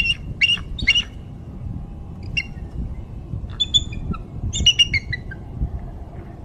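Bald eagle calling: short, high, thin piping notes. Three come in quick succession at the start, one comes in the middle, and a faster run of chattering notes comes near the end.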